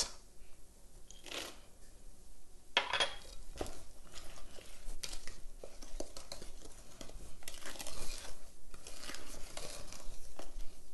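Wooden spoon stirring thick brownie batter with chopped nuts in a ceramic bowl, scraping and knocking against the bowl in irregular strokes.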